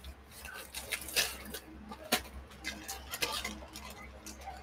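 Costume jewelry being handled: scattered light clicks and clinks of beads and chain knocking together as necklaces are picked up and moved about, at irregular moments.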